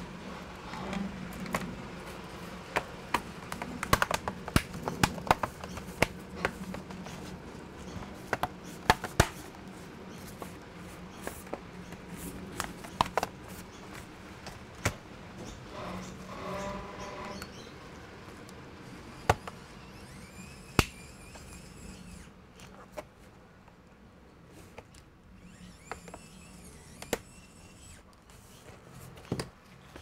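The metal bottom cover of a Dell Inspiron laptop being fitted back onto the chassis and pressed into place: a run of irregular clicks, taps and knocks, densest in the first half.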